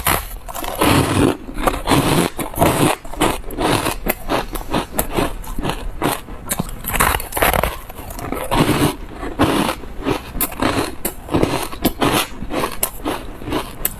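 Close-miked crunching and chewing of refrozen ice chunks dusted with buckwheat powder: a dense, irregular run of crisp crunches as the ice is bitten and broken between the teeth.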